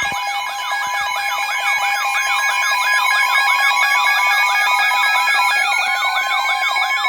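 Loud electronic emergency alert tones layered together: siren-like wails sweeping up and down about three times a second over steady held tones, with a slow rising glide joining in about halfway through.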